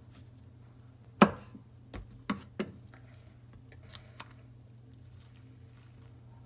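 A large kitchen knife cutting through a microwave-softened kabocha squash and striking the wooden cutting board with one sharp knock about a second in, followed by three lighter knocks against the board. Later a spoon scrapes faintly as it scoops out the seeds.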